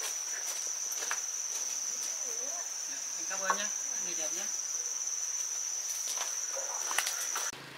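Insects chirring in one steady, high-pitched trill that cuts off suddenly near the end.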